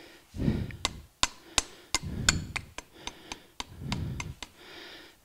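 Hammer tapping repeatedly on a steel socket to drive a new oil seal into a mower blade spindle housing: a string of sharp metallic taps, a few each second.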